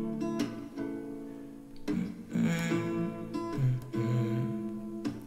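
Background pop song in an instrumental passage with no singing: guitar chords played in a relaxed rhythm, with a new chord struck every second or so.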